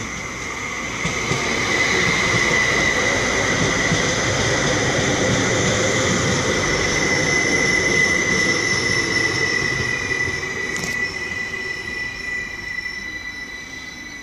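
Elron Stadler FLIRT diesel multiple unit running past on the rails: engine and wheel-on-rail rolling noise with a single steady high whine over it. It grows louder for the first couple of seconds, stays loud as the train goes by, then fades as it pulls away.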